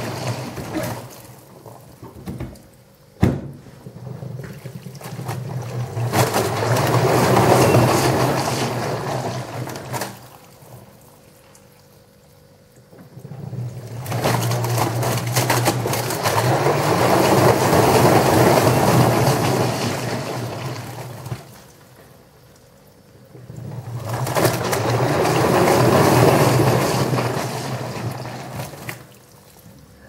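LG Direct Drive front-loading washing machine in its wash phase: the drum tumbles wet, sudsy laundry in long turns of several seconds with short pauses between, a steady motor hum under the swish and slosh of water and clothes. A single sharp click about three seconds in.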